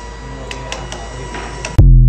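Background music over a steady hum, then a sudden loud, deep boom near the end.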